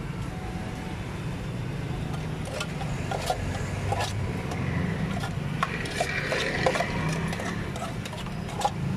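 Metal spatula stirring and scraping food in an aluminium saucepan, with sharp clinks of metal on the pan from about two and a half seconds in, over a steady low rumble.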